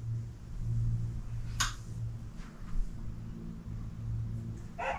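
Room tone: a steady low hum, with a single sharp click about a second and a half in.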